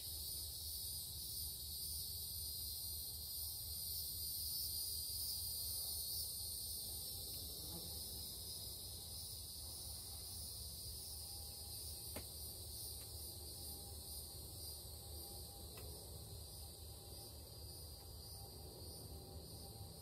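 Steady chorus of insects singing in the summer trees, a continuous high-pitched shrill drone in several layered pitches, with a low rumble underneath.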